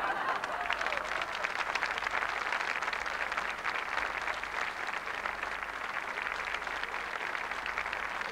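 Studio audience applauding, a steady dense clapping that carries on at an even level.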